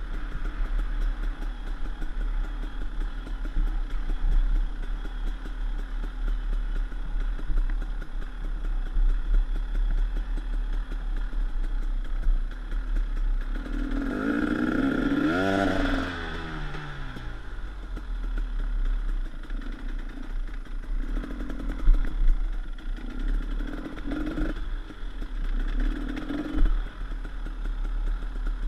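KTM 300 EXC's two-stroke single-cylinder engine on the move off-road, with clatter from the bike. About halfway through it revs up hard and the pitch falls away as the throttle closes, followed by three shorter bursts of throttle near the end.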